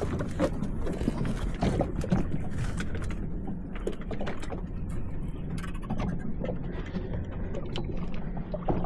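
A boat's engine running steadily at low revs, a low even hum, with scattered small knocks and clicks over it.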